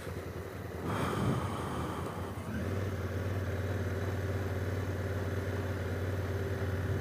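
Honda Africa Twin's parallel-twin motorcycle engine running as the bike works through deep ruts on a gravel road. There is a brief surge about a second in, then the engine settles into a steady drone.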